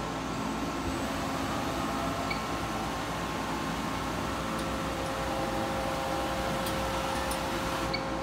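Steady machine hum with a faint steady whine, from a Takisawa LA-250 CNC turning center standing idle with its power on. The whine grows a little stronger about halfway through.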